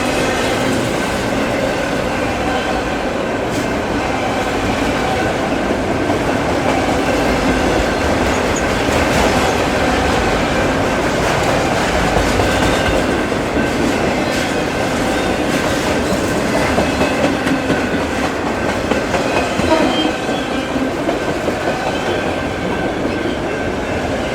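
Freight train rolling past, its steel wheels running on the rails with a steady rumble, some clacking over rail joints and a thin high squealing tone.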